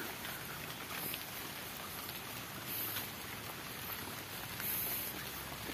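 Light drizzle falling on the surrounding foliage and ground, a steady patter of raindrops.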